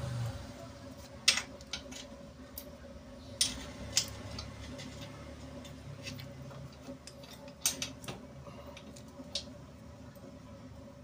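Scattered sharp metallic clicks and clinks of metal parts and tools being handled while spacer rings are fitted onto a motorcycle's rear wheel axle, over a faint steady hum.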